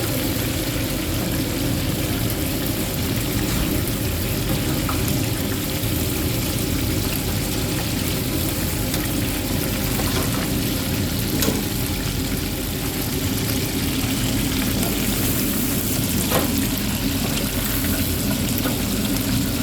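Chicken pieces deep-frying in hot oil, a steady sizzle with an occasional faint pop.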